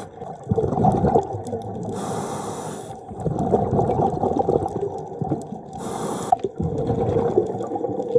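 Scuba diver breathing through a regulator underwater: a hissing inhale about two seconds in and a shorter one at about six seconds, each followed by a long bubbling exhale.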